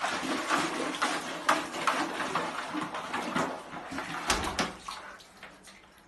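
Water splashing and sloshing in a plastic bucket as a husky dunks its muzzle and paw into it, in irregular splashes that die away near the end.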